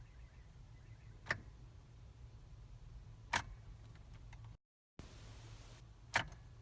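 Three sharp single clicks, a couple of seconds apart, inside a car that won't start, over a low steady hum, with faint light ticking at the start; the sound drops out completely for a moment between the second and third click.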